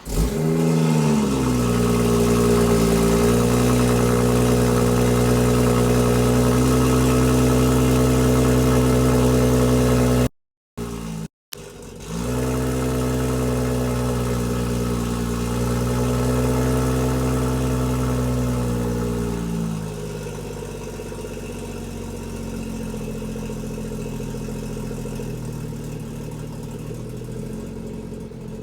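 BMW M240i's B58 3.0-litre turbocharged inline-six, fitted with a catless VRSF downpipe, starting and running at a fast idle. The idle then rises and wavers before settling lower and quieter about twenty seconds in. The owner takes it for a rough idle that began with the downpipe install. The sound cuts out briefly around ten seconds in.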